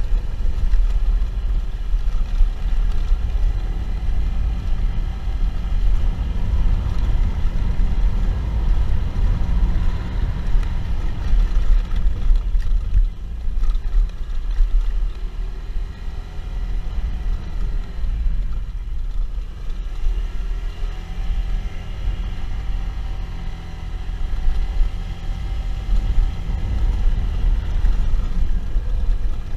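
Motorcycle on the move: heavy wind buffeting on the camera microphone, with the engine running underneath and its pitch rising and falling now and then in the middle.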